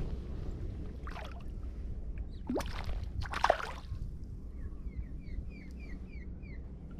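Water sloshing and splashing against a kayak hull while a hooked fish is fought on a spinning rod, over a steady low hum. A few brief swishes come in the first half, and near the end there is a quick run of about eight short falling chirps.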